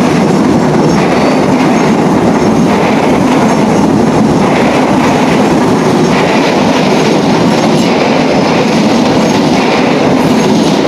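Passenger train's coaches rolling past close by: a loud, steady rumble and rattle of wheels on rail, with a brighter clatter coming back every second or two.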